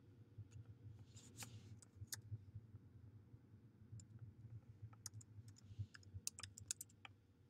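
Faint typing on a computer keyboard: scattered single keystrokes, then a quicker run of them about five to seven seconds in, over a low steady hum.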